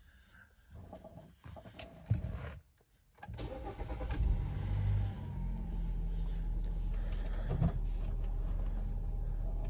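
Car engine cranked and starting about three seconds in after standing unused for a long time, preceded by a few clicks and a thump. It revs briefly, then settles into a steady fast idle, which the driver puts down to the engine being cold in winter.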